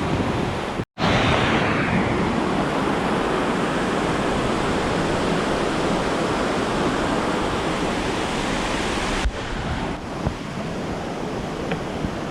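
Steady rush of river water flowing over rocks, a dense even noise that drops out for an instant about a second in and runs a little quieter from about nine seconds on.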